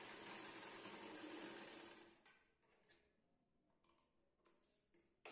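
Near silence: a faint steady hiss that cuts off about two seconds in, followed by a few faint clicks.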